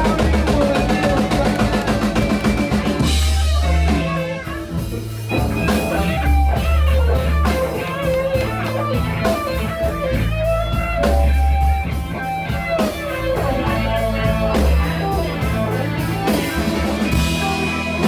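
Live rock band playing an instrumental passage: an electric guitar lead with bending notes over a keyboard, bass and drum kit.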